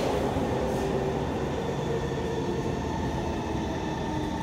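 Kawasaki C151 metro train running through a tunnel, heard from inside the carriage: a steady rumble of wheels and running gear with electric motor tones that drift lower as the train slows for the next station.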